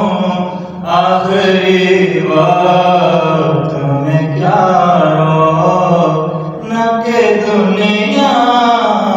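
A naat sung by a single voice without instruments, in long held notes that glide up and down, over a steady low hum. The singing dips briefly just before a second in and otherwise carries on.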